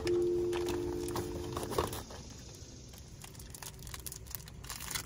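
A held musical chord that ends about two seconds in, then light crinkling and clicking of things being handled.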